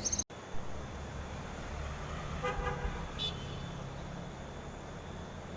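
Steady low rumble of road traffic, with a short horn toot about two and a half seconds in, after a brief cut-out in the audio near the start.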